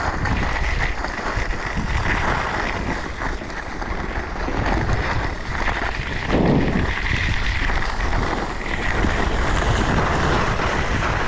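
Wind rushing over a GoPro's microphone as a skier descends, with the skis hissing and scraping over groomed snow. There is a brief low buffet about six and a half seconds in.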